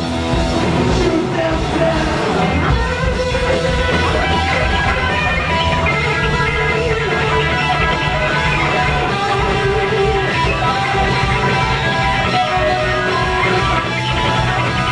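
Live heavy metal band playing loudly, electric guitars to the fore over bass and drums.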